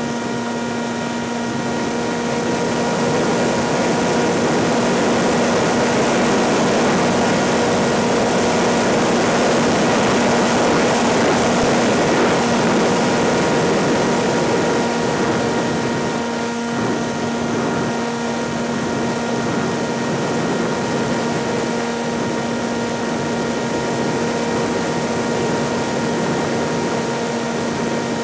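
Propeller aircraft engine running at a steady pitch, with air rushing past the onboard microphone; the rush swells for several seconds early on, then eases off slightly.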